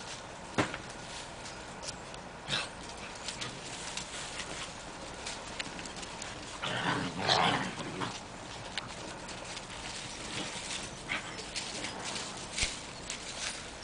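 Seven-week-old Irish Wolfhound puppies moving about: scattered light clicks and knocks, with a short noisy scuffle about seven seconds in.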